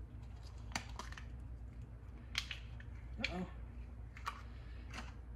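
Small disposable plastic sour cream portion cups being peeled open and squeezed, giving about half a dozen sharp, separate plastic clicks and crackles over a low steady hum.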